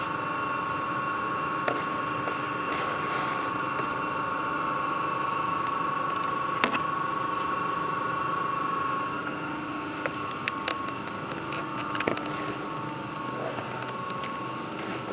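LVD PPEB hydraulic CNC press brake running: a steady hum with a whining tone that fades about nine seconds in, and a few sharp clicks and knocks from the machine, the loudest a little before halfway.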